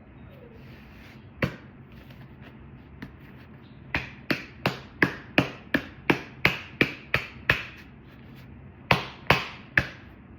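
Sharp taps or knocks on something hard. There is a single one, then a quick run of about a dozen at roughly three a second, then three more near the end.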